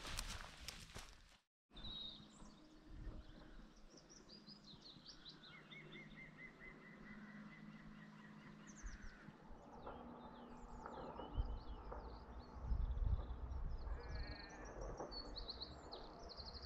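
Small birds singing and chirping, with one long trill in the middle, over faint bleating of sheep and lambs on the hillside. Low gusts of wind buffet the microphone near the end.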